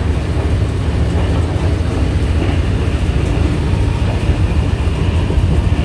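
Steady low rumble of a train running along the line, heard inside its driving cab.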